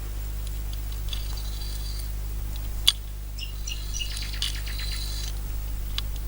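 Small .22 LR cartridges dropped into the loading port of a Henry lever-action rifle's tubular magazine, clinking against the metal in small clusters, with one sharper click about three seconds in.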